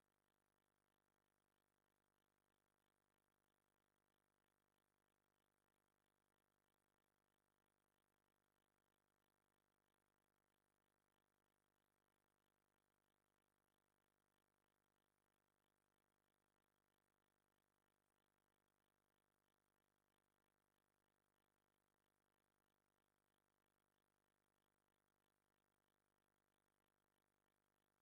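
Near silence: only a faint, steady electronic hiss, with no other sound.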